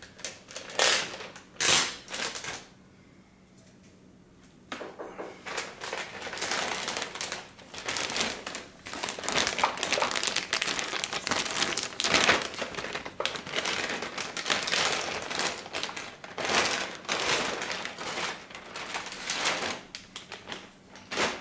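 Clear plastic bag crinkling as a car head unit is handled and unwrapped from it. There are a few short crackles in the first three seconds, then almost continuous crinkling from about five seconds in.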